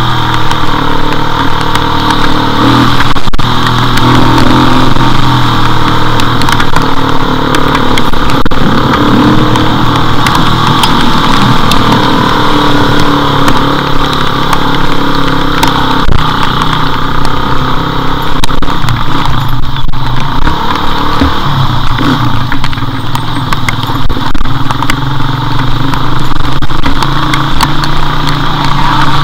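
Motorcycle engine running as it is ridden, its pitch rising and falling with the throttle, heard from an onboard camera with wind and rain noise on the microphone.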